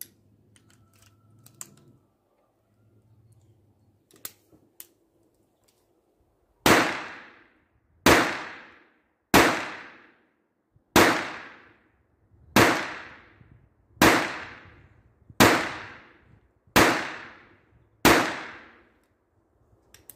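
Taurus PT-22 .22LR semi-automatic pistol firing Eley Standard cartridges: nine shots, about one every second and a half, each trailing off in a ringing echo. A few faint handling clicks come before the first shot.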